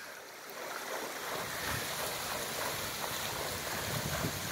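Steady noise of lake water.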